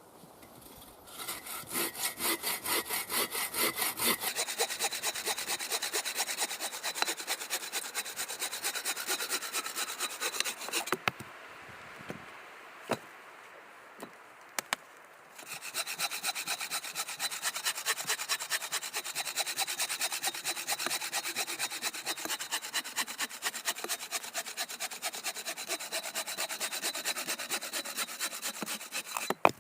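Boreal 21 hand saw cutting through a large log in rapid, even strokes. It stops for a few seconds with a few sharp knocks, then saws again and stops suddenly near the end.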